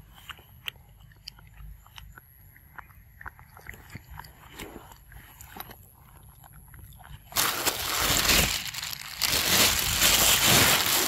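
A macaque biting and chewing food close to the microphone, in small crunching clicks. About seven seconds in, a loud rough rustling noise right at the microphone takes over.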